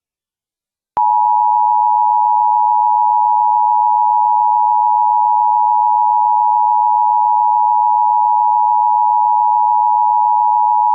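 Emergency Alert System attention signal: two steady tones sounding together, starting abruptly about a second in after a moment of silence.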